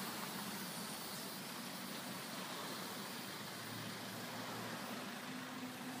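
Steady outdoor noise of road traffic and wind, even throughout with no distinct event.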